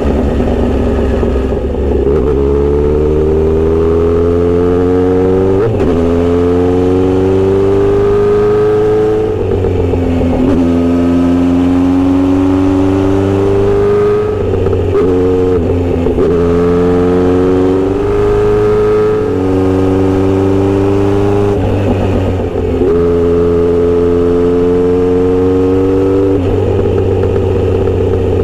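Kawasaki Z900RS inline-four running through a Misty Kintaro short steel exhaust while riding. The engine note climbs steadily under throttle and then falls off sharply every few seconds, over and over.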